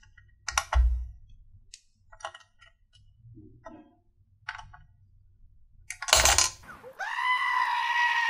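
Small hard clicks and clacks of metal and plastic socket hardware being handled on a motherboard. About six seconds in, a sudden loud burst of noise, then a goat's long, loud scream.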